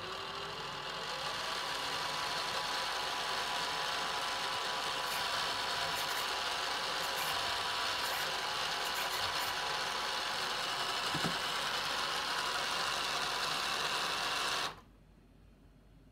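Electric drive motor and gear train of a 3D-printed remote-control Land Rover Defender model running steadily, its wheels spinning freely on stands with no load; the whir stops suddenly near the end.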